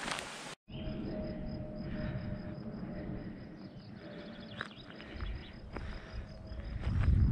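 An insect, such as a grasshopper or cricket, chirping in a fast, even pulse, starting about half a second in. Under it are footsteps on a trail, louder near the end.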